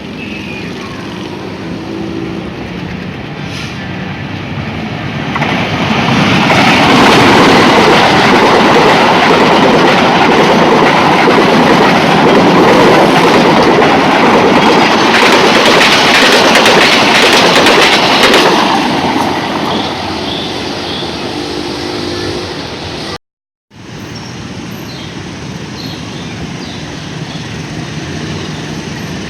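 A diesel-locomotive-hauled passenger train passing close by, wheels clattering over the rails. The noise builds from about five seconds in, stays loud for around twelve seconds, then fades; after a brief cut near the end only a quieter background remains.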